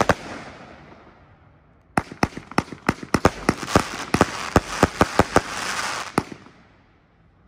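Mad Fire Box multi-shot firework cake firing: one sharp report with a crackling tail at the start, then after a short lull a rapid volley of about twenty reports over dense crackle that stops about six seconds in.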